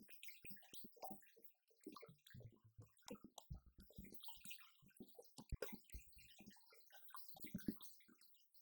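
Faint drumming on an electronic drum kit: an irregular run of quick taps and low thuds with brief gaps.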